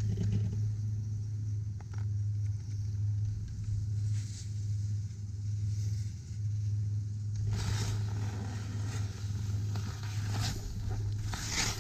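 Skis sliding and scraping over packed snow, with a steady low wind rumble on the microphone of the moving skier. The scraping grows louder about seven and a half seconds in.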